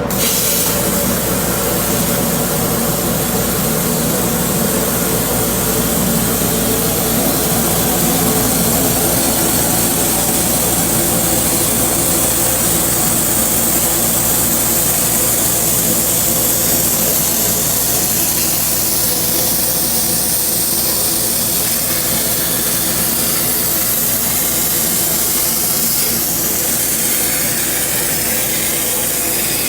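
CNC metal-cutting machine running steadily: a constant hiss over a steady machine hum.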